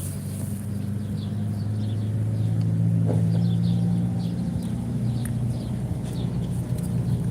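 A steady low engine hum, with faint short high chirps above it.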